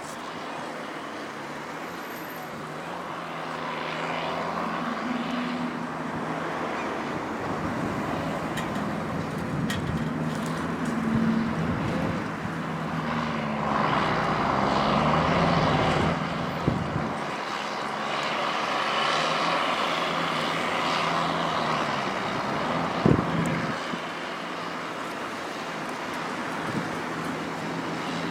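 Huddig 1260B backhoe loader at work: its diesel engine runs with the pitch and load rising and falling as the hydraulics work. Two sharp knocks in the second half, the louder one near the end.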